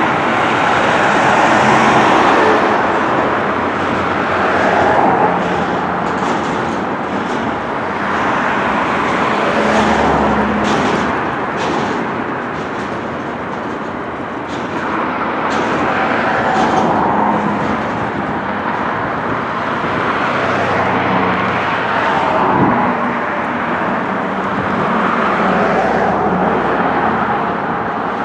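Double-stack intermodal freight cars rolling past on the rails, a steady rumble with scattered clicks, mixed with road traffic going by on the adjacent road.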